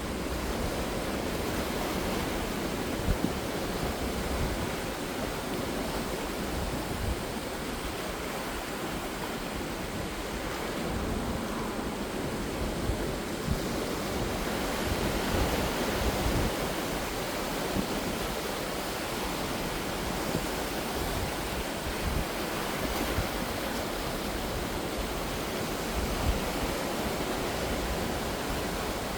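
Sea waves washing ashore: a continuous rushing surf that swells and eases slowly, a little stronger about halfway through.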